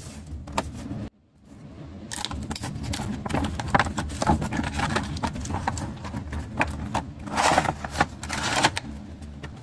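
Cardboard doll box being handled and opened: a run of light knocks, taps and scraping rustles as the end flap is pulled open and the inner tray is slid out, with a louder rustle near the end.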